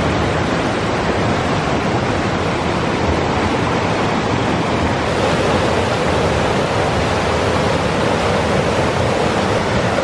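River water rushing steadily, loud and close, with no break or change.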